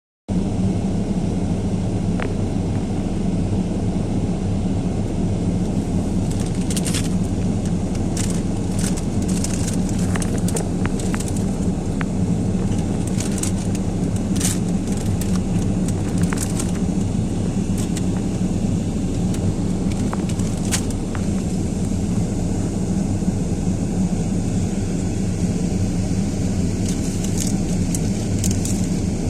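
Storm-force wind blowing as a loud, steady low roar, with scattered sharp crackles and clicks.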